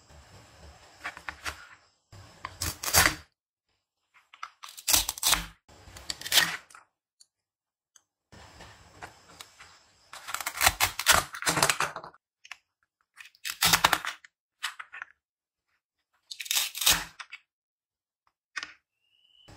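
Velcro on plastic toy fruits and vegetables ripping apart as a plastic toy knife cuts through them. About seven separate rips, from half a second to about two seconds long, with short pauses between.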